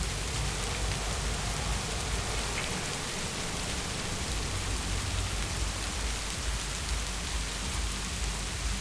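Heavy rain falling steadily, an even hiss of drops on hard surfaces with a low rumble underneath.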